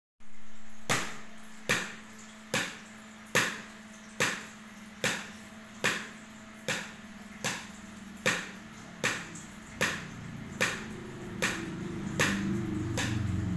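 Large plastic container lids played as a homemade drum with thin sticks: single sharp taps on a steady beat, a little more than one a second.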